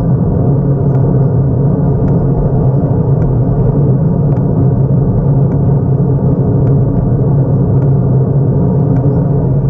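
Steady loud wind rumble on a handlebar-mounted camera's microphone as a road bicycle rolls along at speed, mixed with tyre noise on asphalt. Faint ticks come about once a second.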